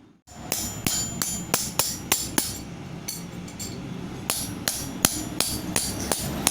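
Hammer striking metal in a steady rhythm, about three blows a second, each with a short metallic ring: a metal bracket being beaten into shape.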